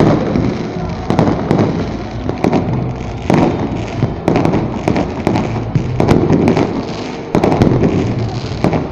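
Fireworks and firecrackers going off over and over, a rapid, irregular string of sharp cracks and bangs with no let-up.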